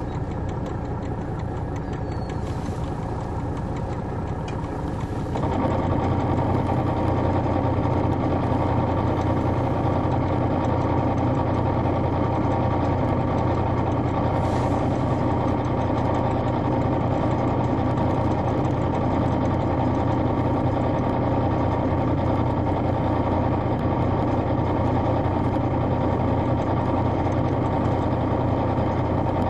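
Detroit Diesel Series 60 diesel engine of an MCI D4000 coach idling, heard from the rear seats inside the bus. About five seconds in, the engine sound steps up to a louder, steady, deeper idle that holds without rising or falling.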